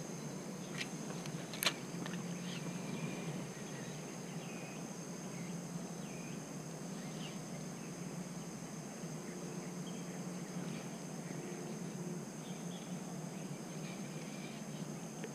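Steady high-pitched drone of insects with scattered faint short chirps, over a low steady hum. A single sharp click about two seconds in.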